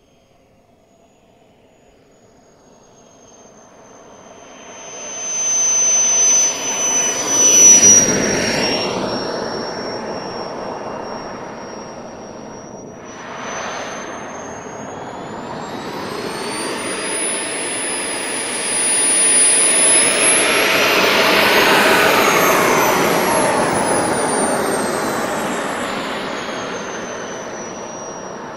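Jet Central Mammoth turbine of a radio-controlled Xtreme A.R.F. Vixen model jet, its high whine growing as the jet comes in to land and passing loudest about a quarter of the way in with a drop in pitch. Later the turbine's whine rises to a peak and then slowly winds down as the jet rolls along the runway.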